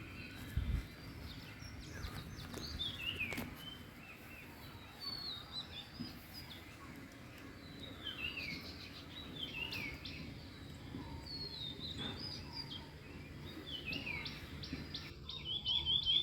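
Songbirds chirping: repeated short notes that sweep downward in pitch, every second or two, over a steady low background noise. There is a brief low thump about half a second in, and a quicker, louder run of notes near the end.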